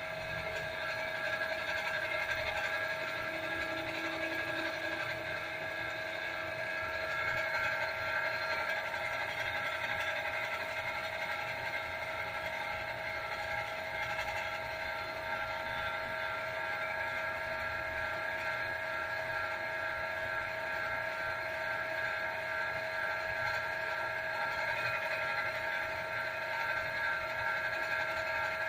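Motorized potter's wheel running at a steady speed: a constant mechanical hum with a steady whine of several fixed tones that never changes in pitch or level.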